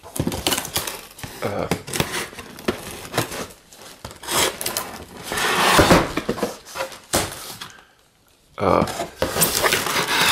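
Knife slitting packing tape on a cardboard box, with scraping, rubbing and rustling of the cardboard flaps as they are worked open. The sounds come in irregular bursts and pause briefly a little after eight seconds in.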